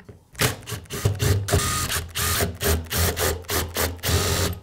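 Cordless driver backing screws out of a plastic power-tool handle housing, running in several short bursts with brief pauses between them.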